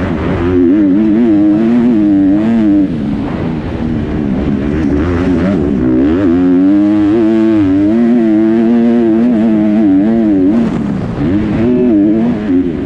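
Kawasaki KX250 four-stroke single-cylinder motocross engine at race pace, heard close up on board. The revs rise and fall constantly with throttle and gear changes through the turns, dropping briefly a few times as the throttle is rolled off.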